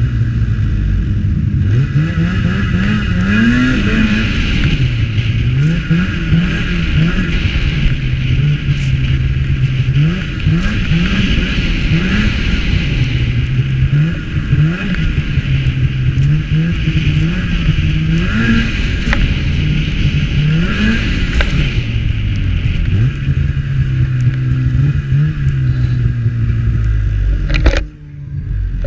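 Snowmobile engine running under way, revving up and easing off again and again, with steady cruising stretches between. The sound briefly drops out near the end.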